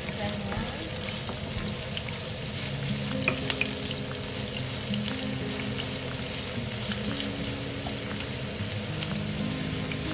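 Oil sizzling as julienned ginger, onion and garlic are stir-fried in a frying pan, with a wooden spatula scraping and clicking against the pan now and then.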